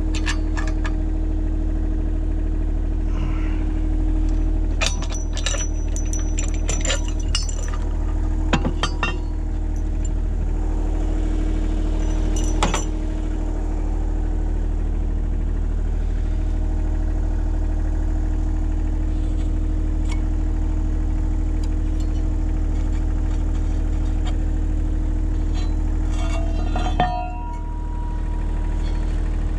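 Kubota KH-60 mini excavator's diesel engine running steadily while digging, with scattered metallic clinks and clanks. The clinks bunch between about five and nine seconds and again near thirteen seconds, and a sharp clank comes near the end.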